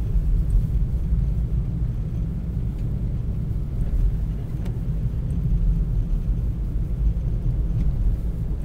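Steady low rumble inside a four-wheel-drive vehicle's cabin as it drives along a snow-covered road: engine and tyre noise.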